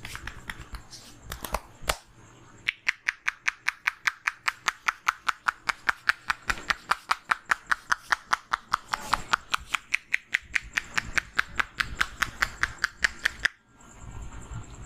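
Hands tapping rapidly on the head in Indian head massage percussion, a fast even run of sharp slaps at about five a second that stops suddenly near the end, after a few separate taps.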